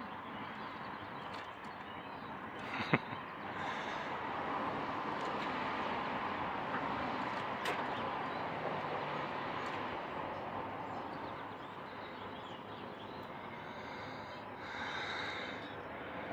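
Steady outdoor background noise that swells for several seconds in the middle, with a single sharp click about three seconds in.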